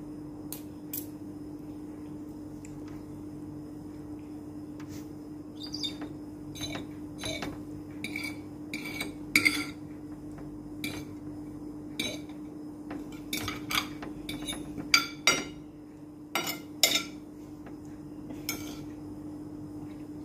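A metal spoon and fork clinking and scraping against a plate as food is scooped, in scattered sharp clinks that cluster in the middle stretch and are loudest about three-quarters of the way through. A steady low hum runs underneath.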